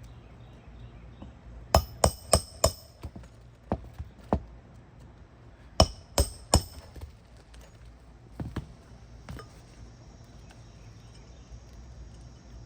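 Hammer blows on metal, each with a bright ring: four quick hard strikes, a few lighter taps, then three more hard strikes, and a faint pair of knocks later.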